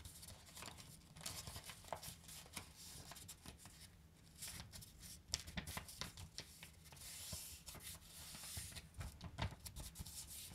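Faint rustling and crinkling of a sheet of A4 paper being folded in half and pressed along the crease, with scattered small ticks as fingers slide over the paper.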